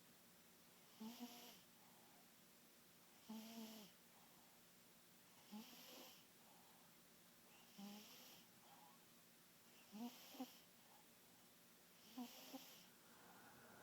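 Faint snoring of a sleeping cat: a short, buzzy snore with a breathy hiss on each breath, about every two seconds, six in all.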